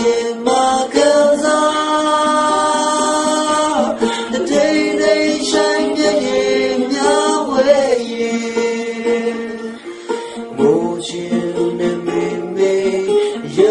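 A song: a voice singing long held notes over plucked guitar accompaniment.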